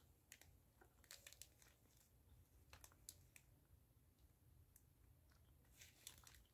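Faint, scattered crinkling of a plastic candy bag being handled, in a few short clusters of quick crackles.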